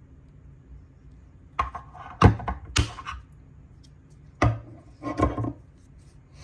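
Small hard plastic bit case being handled and clipped open and shut: a few sharp clicks and knocks in two groups, about two seconds in and again about five seconds in.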